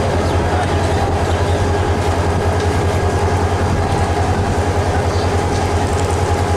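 Passenger train's coaches rolling past close by: a steady low rumble of wheels on track with a faint clickety-clack and a constant hum over it.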